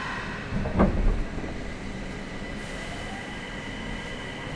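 Inside a Nagoya Municipal Subway 2000-series car with a renewed IGBT VVVF inverter: a heavy thump about a second in, then the inverter's steady high whine over a low running rumble as the train pulls away.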